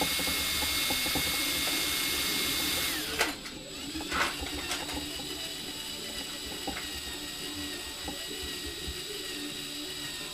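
Electric drill running with a steady motor whine as its bit cuts into a rivet. About three seconds in the whine drops in pitch and level, and the drill keeps running more quietly, with a few light clicks.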